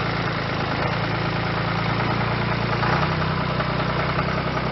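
A vehicle engine idling steadily close by, its pitch shifting slightly about three seconds in.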